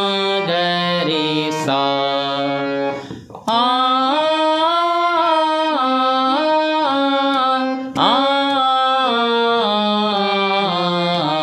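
Harmonium playing a stepwise taan in raag Yaman Kalyan, sung along on an open 'aa' vowel, note changing after note in quick runs. The run breaks off briefly about three seconds in and again about eight seconds in before starting a new phrase.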